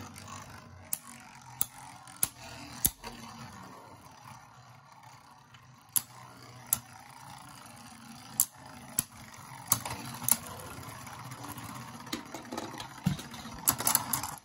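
Two Beyblade Burst tops spinning in a plastic stadium with a steady whir, clashing in about a dozen sharp clacks at uneven intervals. The hits come quicker near the end.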